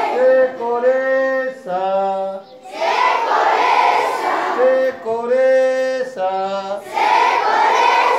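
A class of children chanting a short rhyme in call-and-response: a teacher sings each line alone and the children answer it in chorus, twice over.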